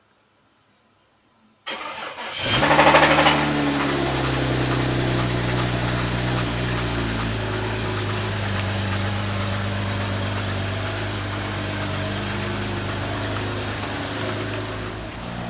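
BMW X6's N54 twin-turbo inline-six cranked by the starter about two seconds in, catching with a brief flare of revs and then settling into a steady idle. The engine is badly damaged inside, its oil and oil filter full of metal shavings.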